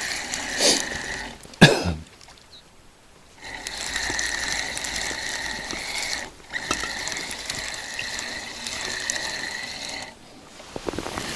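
Fishing reel being wound, its gears whirring steadily in three runs with short pauses between, and a sharp knock about one and a half seconds in.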